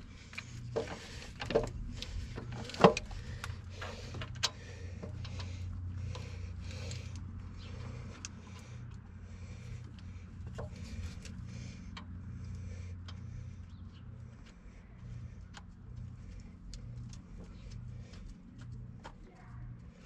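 Metal clicks and knocks of hand tools and parts as a starter motor and its bolts are worked into place on a skid steer engine, the sharpest knock about three seconds in. A low, steady machine hum with a regular pulse, about once a second, runs underneath.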